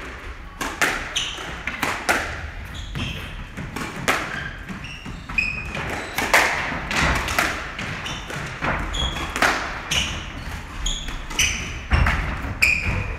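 Squash rally: the ball struck by rackets and thudding off the court walls and floor in an irregular run of sharp hits, with short squeaks of shoes on the wooden court floor.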